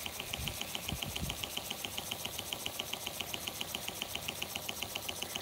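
1921 Empire B-30 toy steam engine running steadily, with a quick, even beat of about eight puffs a second.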